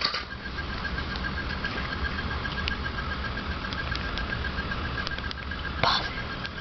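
A few light clicks of an LG Scoop cell phone's keypad buttons being pressed, over a steady low hum and a faint, rapidly pulsing high tone. A short louder sound comes about six seconds in.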